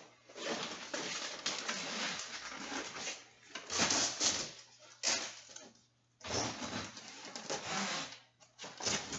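A soft vinyl-and-fabric side-by-side door enclosure panel rustling and scraping as it is handled and zipped onto the roll cage. The sound comes in several noisy stretches of a second or two, with brief pauses between them.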